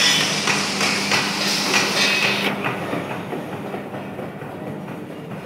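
Rhythmic metallic clanking of a manually worked water pump in use, about three to four knocks a second, over a steady low hum; the clatter drops away about halfway through.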